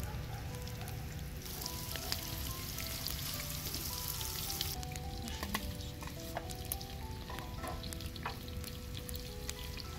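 Egg-battered chicken hearts frying in hot oil in a wide pan, a steady sizzle with scattered pops and clicks; the sizzle grows louder and hissier about a second and a half in for about three seconds as fresh pieces go in. Light background music plays underneath.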